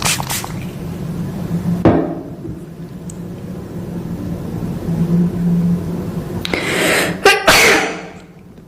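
A person sneezing: a noisy drawn-in breath builds for under a second, then a sharp, loud sneeze about seven seconds in, with a breathy rush of air after it. A dull thump near two seconds in.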